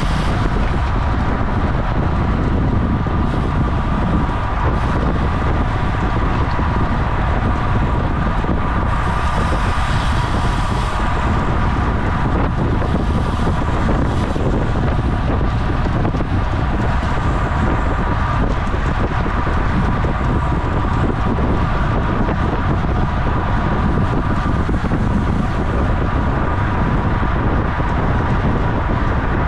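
Steady wind rush buffeting the microphone of a bike-mounted camera on a racing bicycle at speed, as a heavy low rumble. A thin, steady hum sits above it.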